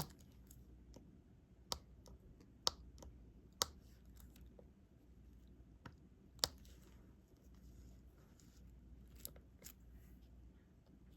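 Faint, irregularly spaced sharp clicks of a diamond-painting stylus picking up and pressing drills onto the canvas, a handful over several seconds, over quiet room tone.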